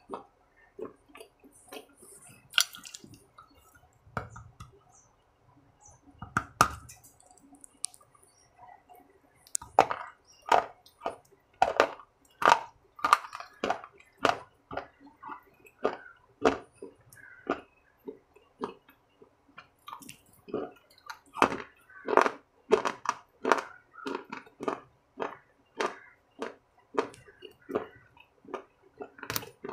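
A person chewing food close to the microphone: a quick, irregular run of mouth clicks and smacks, sparse at first and steadier from about ten seconds in.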